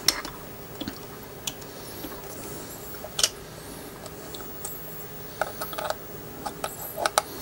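Light taps of a small gunsmith's hammer on a pin punch, driving the trigger pin out of a CZ 457 rifle action. A few scattered clicks come first, then a quicker run of light taps in the last two seconds.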